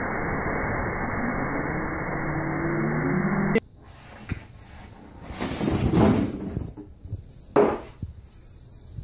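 A heavy spray of water crashing down and rushing, a dull, muffled, steady rush that cuts off abruptly about three and a half seconds in. After that, styrofoam packing and a cardboard box scraping, squeaking and knocking in short bursts as a cat wriggles in them, the loudest a couple of seconds after the cut and again near the end.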